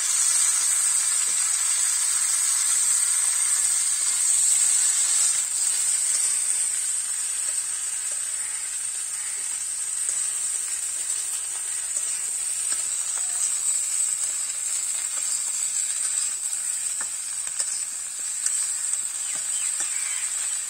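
Chopped flat beans and other vegetables sizzling in oil in an open aluminium karai over a wood fire: a steady high hiss, a little louder in the first six seconds after the lid comes off.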